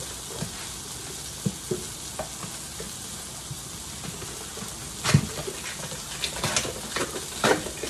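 Sausage patties sizzling steadily in a frying pan, with scattered knocks and taps from handling a plastic tub of protein powder and a blender cup. The loudest knocks come about five seconds in and again near the end.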